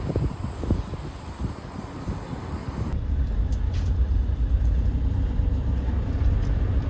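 A road vehicle running with a low engine rumble. The first few seconds are uneven, with knocks and rattles; about three seconds in it becomes a steadier, heavier rumble.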